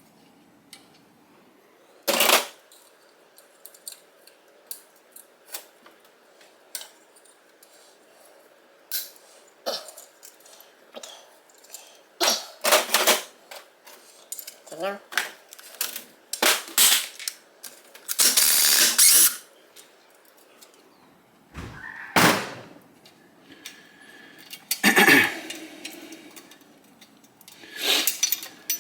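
Metal engine parts and hand tools clinking, knocking and rattling as they are handled and set down during an engine teardown. The sounds come as scattered separate knocks, with a longer rattle of about a second and a half roughly two-thirds of the way through.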